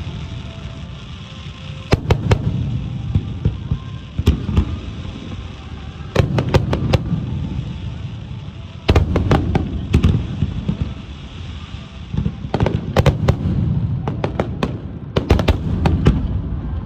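Aerial firework shells bursting in rapid clusters during a fireworks finale: sharp cracks over deep, echoing booms. Dense volleys come about two seconds in, then around four, six to seven, nine to ten, twelve to fourteen and fifteen to sixteen seconds in.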